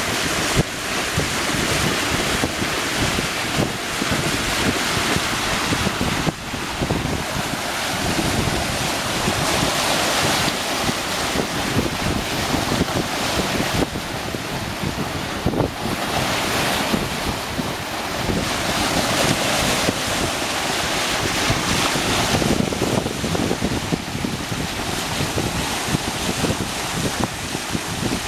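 Water rushing and splashing as a sailing ship's bow cuts through open sea, under heavy wind buffeting on the microphone.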